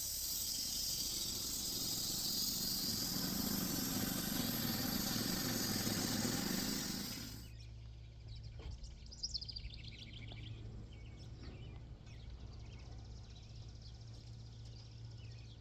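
Home-built bandsaw sawmill running with a steady loud hiss that cuts off abruptly about seven and a half seconds in. After that there is a quieter low hum with birds chirping.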